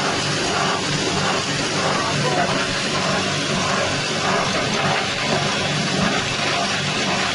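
Engine-driven corn-cob grinding mill (6.5 hp engine) running steadily: a low engine hum under a loud, even, hissing din from the mill.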